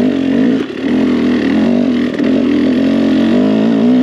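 KTM 300 EXC TPI single-cylinder two-stroke enduro engine pulling under throttle on a hill climb, its note wavering with the throttle and dipping briefly about half a second in.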